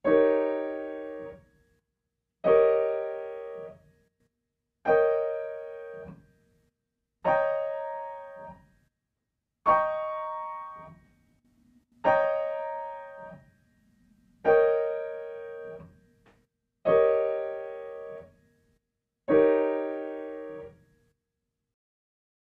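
Piano playing solid (block) dominant seventh chords of A-flat major, the E-flat seventh chord, with the right hand: nine chords about two and a half seconds apart, moving up through the inversions and back down. Each chord is struck, rings and fades, and is released before the next.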